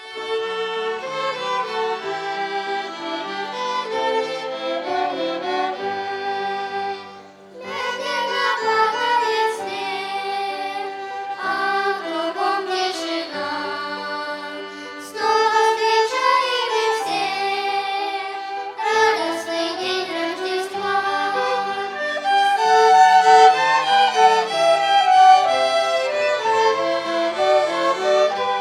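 Violin ensemble playing a slow, lyrical melody in phrases, with a brief break about seven seconds in.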